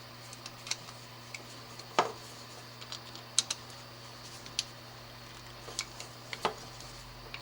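Hands working wires and small parts into an electrical box: irregular light clicks and taps, with two louder knocks, one about two seconds in and one near the end.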